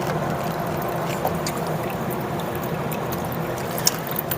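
Water spraying and running off inside a gas furnace cabinet as it is rinsed out, over a steady low mechanical hum, with a few light drip-like ticks.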